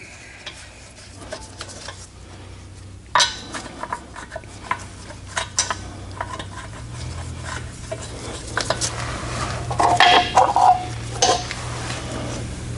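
Steel lug nuts clinking in a gloved hand and against the wheel as they are threaded by hand onto the studs of a Honda Accord's rear wheel. Scattered light metallic clicks, with a louder run of clinks about ten seconds in, over a low steady hum.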